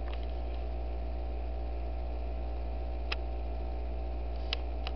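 Steady low electrical hum with faint hiss, and a few soft clicks about three seconds in and near the end.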